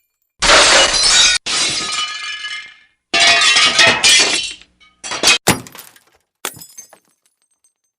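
Glass smashing and shattering in a string of separate crashes, each starting suddenly and trailing off in tinkling shards. Three long smashes come in the first half, then a quick pair of shorter crashes and a small one near the end, with sharp cuts to silence between them.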